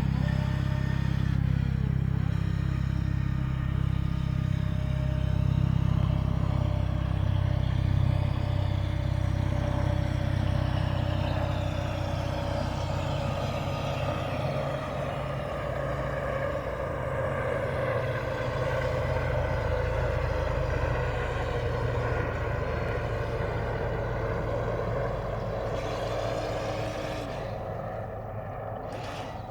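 Motor vehicle running steadily: a low engine and road rumble with a faint steady hum, easing off over the last few seconds.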